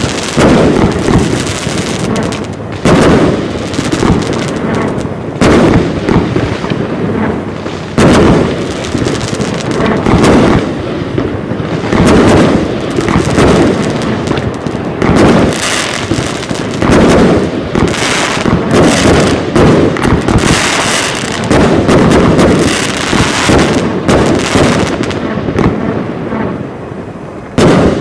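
Heron 456 Category II consumer firework cake batteries firing a continuous barrage of shots and aerial bursts. A sharp report stands out every two to three seconds over near-continuous firing noise.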